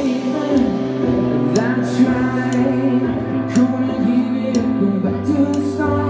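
Live band music with synthesizer keyboards over a steady bass and beat, and a singing voice on top.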